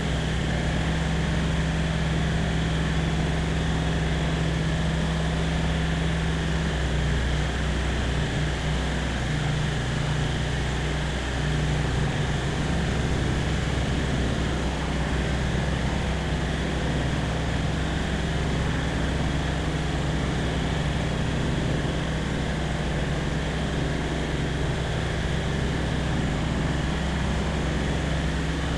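Light aircraft's piston engine and propeller droning steadily in flight, with a brief wavering in the engine note about seven seconds in.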